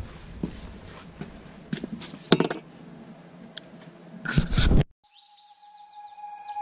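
Wind noise on the microphone, with knocks and clicks from the camera being handled and set down. About five seconds in, the sound cuts off sharply and is replaced by a run of quick falling chirp-like tones over a steady tone, an edited sound effect leading into music.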